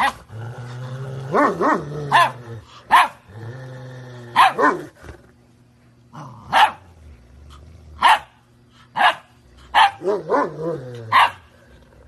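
A dog barking about a dozen times at irregular intervals, some barks in quick pairs, a few with a bending, whine-like pitch.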